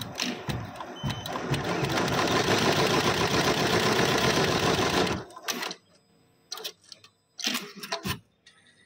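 Richpeace embroidery laser cutting machine running steadily for about four seconds as it cuts a round eyelet hole in the fabric, then stopping abruptly, followed by a few sharp mechanical clicks.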